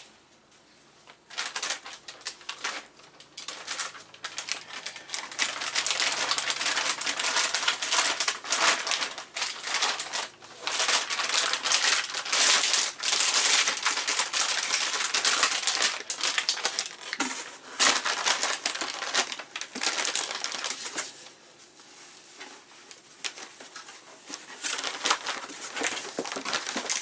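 Crinkling and rustling of plastic packaging with many small clicks and clatters as an electronics board is handled. It starts about a second in and eases off for a few seconds near the end.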